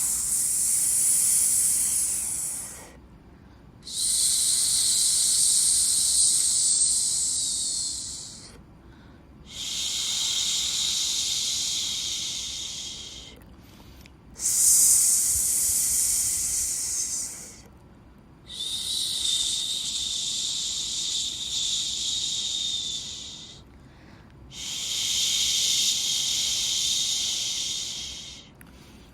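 Rhythmic shushing white noise for lulling a baby: long hissing 'shhh' sounds of about four seconds each, six in a row, with a short quiet break of about a second between them.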